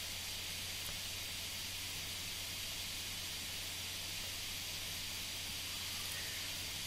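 Steady faint background hiss with a low hum underneath: microphone and room noise of the recording, unchanging throughout.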